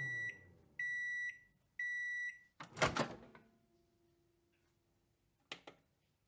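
Microwave oven finishing: three high beeps about a second apart, then the door popping open with a clunk, followed by a few small clicks near the end.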